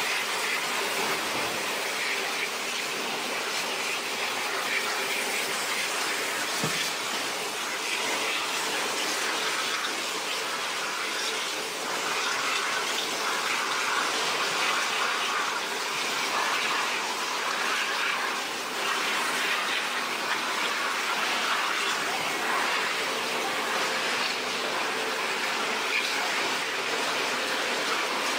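Steady rushing of running water, with a faint machinery hum underneath, from the hoses and conveyor of a line cleaning gutted salmon.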